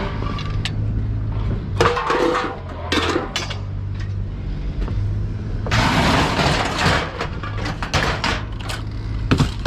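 Scrap and junk being handled and tossed: a string of knocks and clatters, with a longer rattling crash about six seconds in, over a steady low hum.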